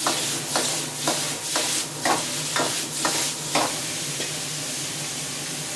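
Metal wok ladle scraping and knocking in a wok while chicken and mushrooms are stir-fried over high heat, the food sizzling throughout. The ladle strokes come about twice a second and stop about three and a half seconds in, leaving a steady sizzle.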